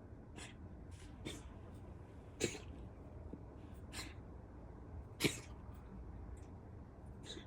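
Bengal cat coughing: a run of about six short, sharp, breathy hacks spaced a second or so apart, the two loudest about two and a half and five seconds in.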